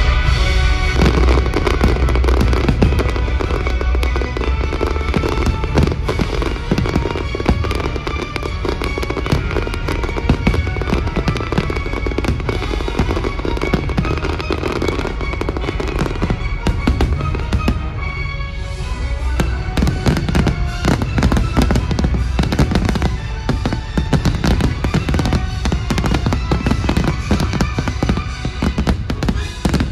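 Fireworks bursting and crackling in quick succession over loud show music, with a brief let-up a little past halfway.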